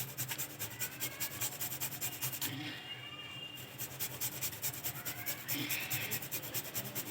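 A knife chopping a piece of fresh turmeric root in rapid, even strokes, about six a second, with a short pause about two and a half seconds in.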